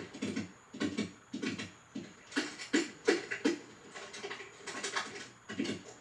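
Animated film's foley effects played through a TV speaker: a string of short scuffs and light thumps, roughly one or two a second, with no dialogue or music.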